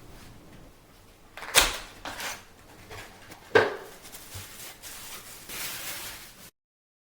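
Handling noise from hardware being moved: two sharp clicks about two seconds apart, with lighter knocks and rustling between them, then an abrupt cut to silence near the end.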